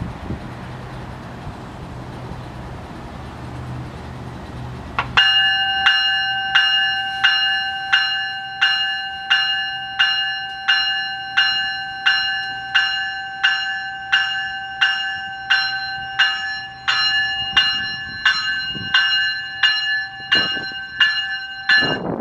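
A GO Transit cab car's warning bell ringing at an even pace, about four strikes every three seconds, as the train gets ready to depart. It starts about five seconds in, after a steady low hum from the standing train, and stops near the end as the train begins to move.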